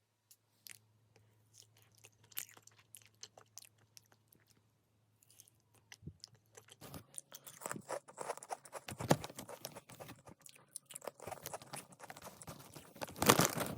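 A person eating close to the microphone, with wet chewing and crunching mouth sounds. The first few seconds hold only scattered small clicks. From about seven seconds in the chewing becomes dense and crackly, with a louder burst near the end.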